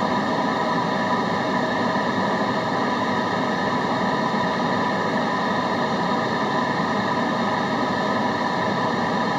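Steady white noise for study and concentration: an even, unchanging hiss with no breaks or events.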